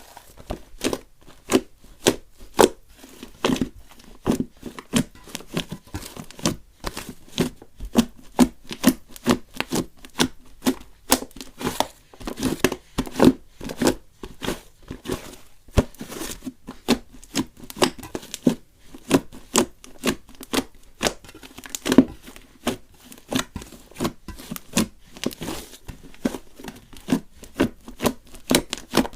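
Slime being handled and squeezed, giving a quick, irregular run of sharp crackling clicks and pops, several a second.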